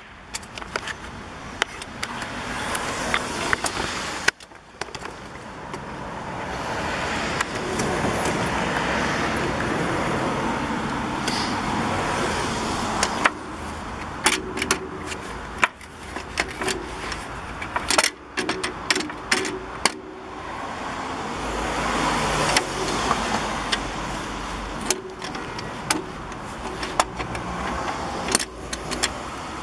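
Repeated metallic clinks, knocks and rattles as an upper control arm and hand tools are worked loose from a car's front suspension, over a steady rushing background that swells and fades.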